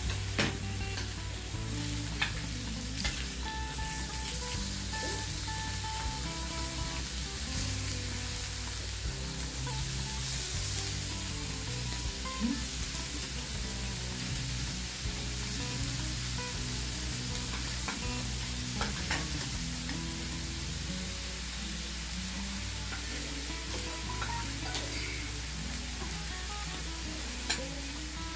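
Beef slices sizzling and frying steadily on a gas-fired tabletop grill pan. A few sharp clicks of chopsticks and tongs tapping the pan.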